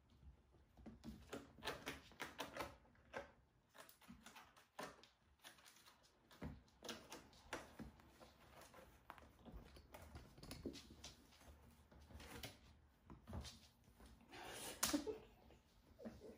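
Faint irregular taps, scuffs and clicks of kittens pouncing, scampering and batting at a feather wand toy on a hard floor, with a louder scuff about fifteen seconds in.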